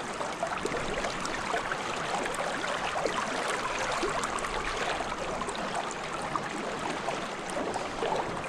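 Creek water flowing steadily, an even rushing hiss with faint small splashes and trickles.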